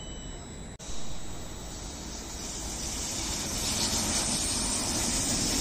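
Frecciarossa high-speed train running through the station: an even rushing noise that grows steadily louder as it approaches.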